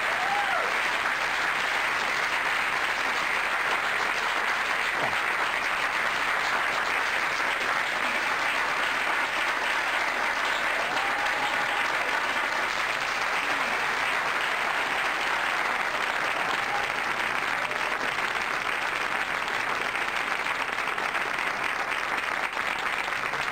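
Live theatre audience applauding, a long, steady round of clapping.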